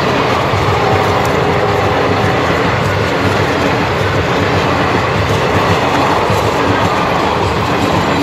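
Rake of Indian Railways ICF passenger coaches passing close by: a loud, steady noise of steel wheels running on the rails.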